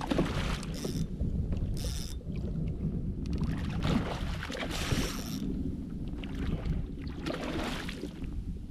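Wind on the microphone and water splashing around a kayak while a hooked fish is fought beside it, with a steady low rumble and several louder rushing gusts.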